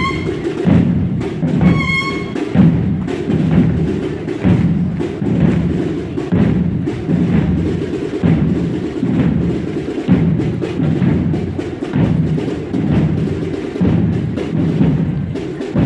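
Procession drum corps of a Holy Week brotherhood playing together, a dense steady march beat of many drums with regular strong pulses.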